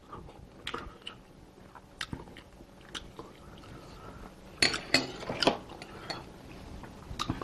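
A person chewing and eating, with short clicks and clinks of a metal spoon against bowls; the loudest cluster of clicks comes about two-thirds of the way through.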